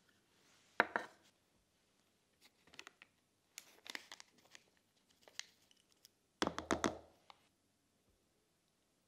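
Plastic measuring spoon knocking and clicking against a plastic tub, with a spice sachet crinkling as spice powders are tipped onto flour. The sound comes in short clusters of clicks and rustles, the loudest about two thirds through.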